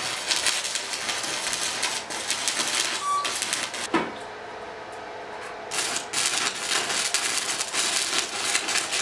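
Stick welding on 16-gauge sheet steel with an 80-amp, 120-volt arc welder: the arc crackles and sizzles steadily, stops for a second or two about four seconds in, then strikes up again.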